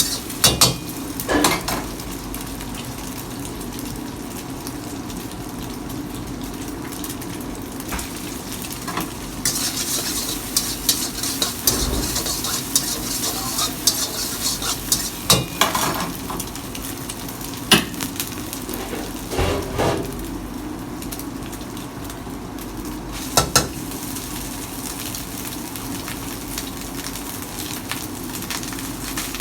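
Food sizzling steadily as it fries in a hot pan, stirred with a metal spatula that scrapes and knocks against the pan now and then.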